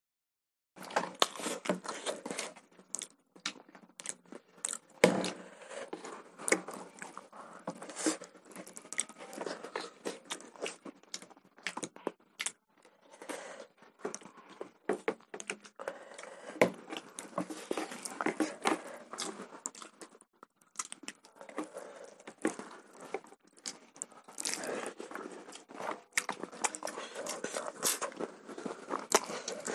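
Close-miked eating sounds of rice and chicken curry eaten by hand: chewing and mouth smacks with fingers squishing rice, a dense run of short, irregular clicks.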